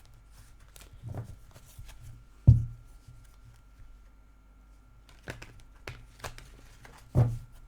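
Tarot cards being handled on a table: scattered rustles and light clicks. Two louder thumps come about two and a half seconds in and near the end.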